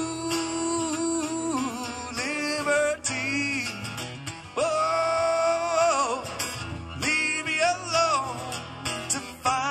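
Live solo acoustic guitar playing, with a man singing long held notes that waver and bend.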